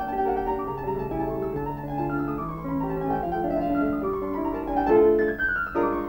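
Cartoon background score led by piano, playing a light melody in a series of short notes.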